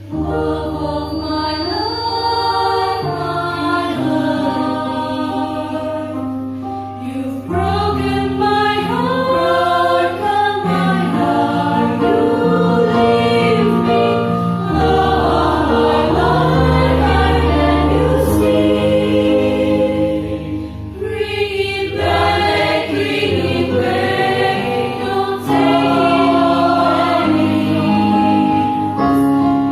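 School choir singing in several-part harmony, voices sustaining and shifting chords over low held notes; it comes in loudly at the start, with a brief softer passage about two-thirds of the way through.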